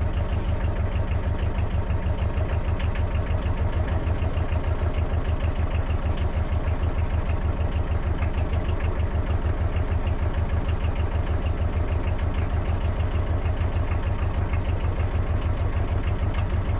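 Narrowboat's diesel engine running steadily under way, a rapid even chugging.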